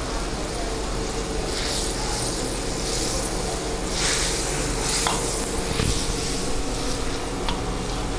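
Bubbling contents of a large steel wok sizzling over the burner while a long-handled steel ladle stirs them. The hiss swells in surges each time the ladle sweeps through, with a couple of light clicks of the ladle against the wok.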